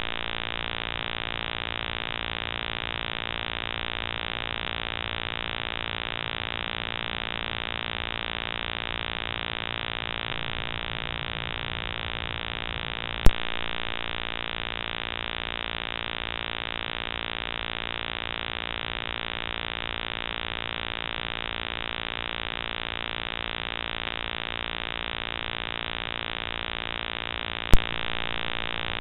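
Steady electronic buzz from a Moultrie trail camera's own circuitry, a constant many-toned hum. A sharp click comes about 13 seconds in and again near the end, where one recorded clip cuts to the next.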